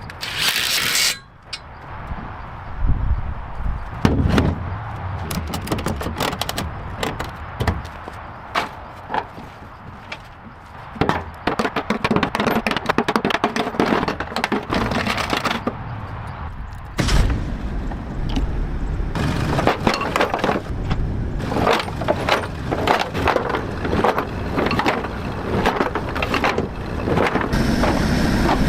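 Irregular knocking, cracking and scraping from hand work on an old car body, with many sharp clicks and a few louder knocks.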